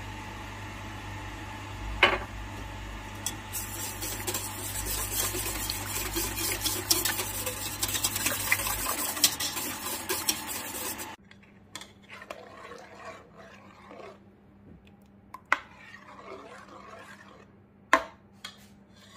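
A wire whisk beating sauce in a metal saucepan, a dense rapid clicking and scraping over a low hum. About eleven seconds in it cuts off suddenly to quieter scraping, with two sharp knocks of a spoon against the pot.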